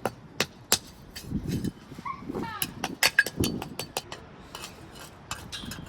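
Hard pavers clinking and knocking against each other as they are handled and set: a rapid series of sharp clicks with a few dull thumps.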